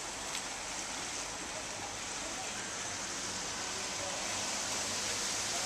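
Steady hiss of rain falling, even and unbroken, with a faint low hum underneath.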